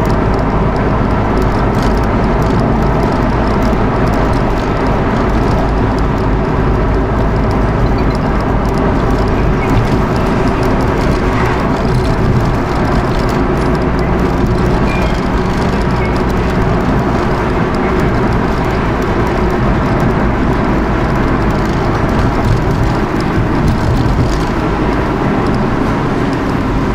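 Subaru Impreza STI's turbocharged flat-four engine running steadily with tyre and road noise, heard from inside the cabin while the car is driven.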